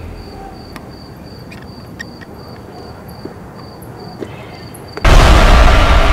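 A cricket chirping steadily, about two to three short high chirps a second, with a few faint clicks. About five seconds in, a sudden loud, harsh horror sound effect cuts in over everything.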